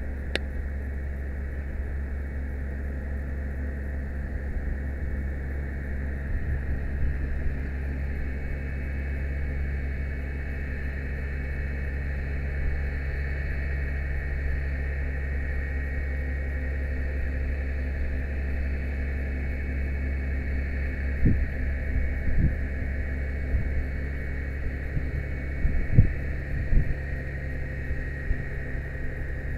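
Fire truck's engine and aerial ladder hydraulics running steadily as the ladder rotates, a low drone with a steady higher whine. A few short knocks come near the end.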